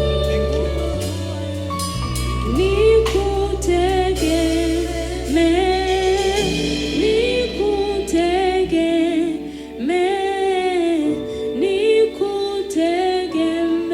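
Swahili gospel worship song: a singer holds long, wavering notes over steady instrumental backing.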